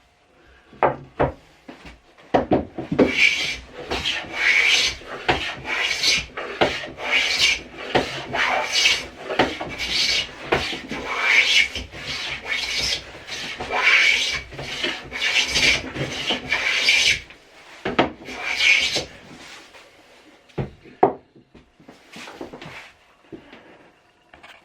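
A blade being stroked back and forth on a waterstone, a gritty rasp with each quick stroke. The steady run of strokes stops about two-thirds of the way through, and only a few separate strokes follow.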